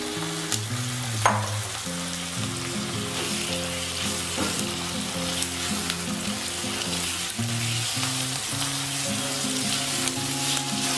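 Raw chicken pieces frying in hot oil with onions, a steady sizzle, while a spatula stirs and scrapes them around the pan; a sharp clink of the spatula on the pan about a second in.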